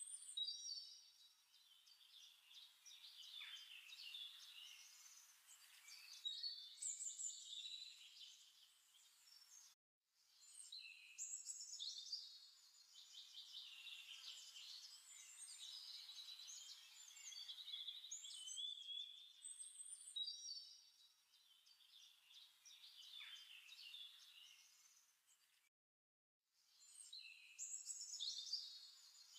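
Faint birdsong: many small birds chirping and twittering in quick, high calls. It drops out to dead silence for a moment about ten seconds in and again near the end.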